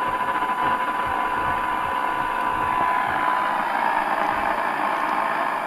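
Cobra 29 NW LTD CB radio's speaker playing a weak signal-generator test tone, one steady tone barely above the receiver's hiss. The tone sinks into the hiss about three seconds in. This is the receiver still picking up a signal at the generator's lowest setting, about −130 dBm.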